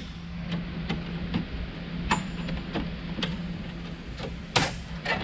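Irregular clicks and clacks of metal and plastic parts inside a server chassis as gloved hands work its levers and pull out boards, with two louder knocks, one about two seconds in and one near the end.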